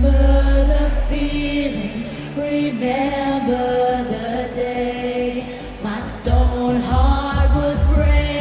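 Live eurodance music from a festival stage, with a melodic line throughout. A heavy held bass note fades out in the first second or two, and a steady kick-drum beat comes back in about six seconds in.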